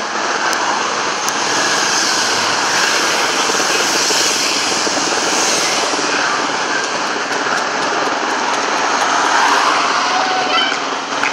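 Race convoy of team cars and motorcycles passing along the street under a steady, loud roar, with an aircraft engine droning overhead throughout.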